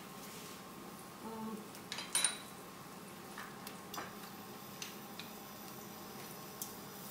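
Light clatter of kitchen utensils: a short metallic clink about a second in, a sharper ringing clink about two seconds in, then a few soft taps.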